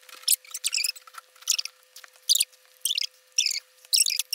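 Chewing on a crispy breaded chicken sandwich close to the microphone: short crackly mouth noises, about one to two a second, over a faint steady hum.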